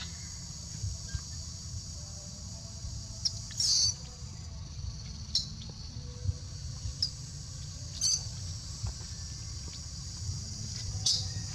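Baby long-tailed macaque giving short, high-pitched squeaks, about six of them, with one longer squeal a few seconds in.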